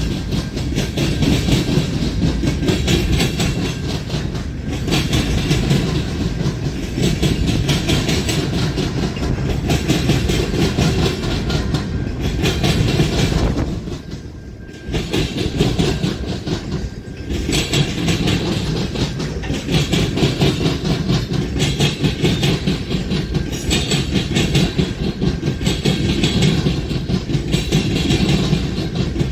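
Freight train cars rolling past, steel wheels rumbling and clacking steadily over the rails, with a short lull about halfway through.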